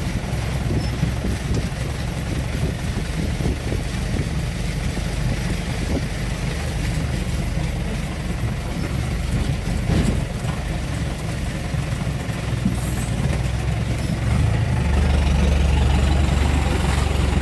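Mahindra jeep's engine running under load as it climbs a muddy track. A single sharp knock comes about ten seconds in, and the engine grows louder near the end.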